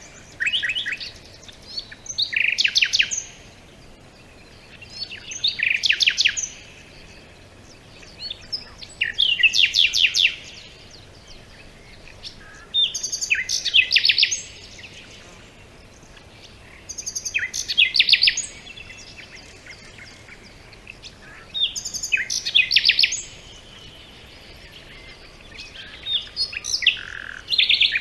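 A songbird repeating the same short song of quick, high notes about every four seconds, each song lasting a second or so, over a faint steady background hiss.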